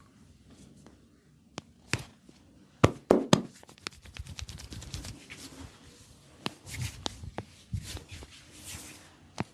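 Sharp cracking snaps and slaps of Thai-style massage skin cracking on the body. There are a few isolated cracks, then three loud ones about three seconds in, followed by a fast run of lighter snaps and more scattered cracks near the end.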